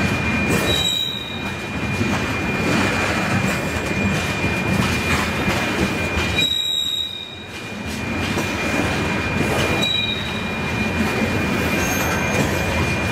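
Rock train's hopper cars rolling past on steel wheels, with a steady high wheel squeal. Brief higher squeals come three times, at about one, six and a half and ten seconds.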